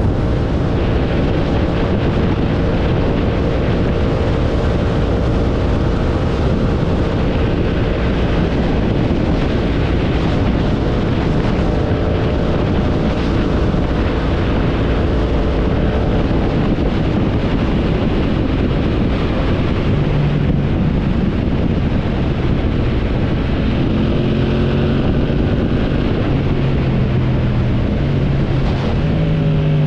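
Yamaha MT-07 motorcycle's parallel-twin engine running under way, with wind rushing over the microphone. The engine note holds steady, then settles lower in the second half.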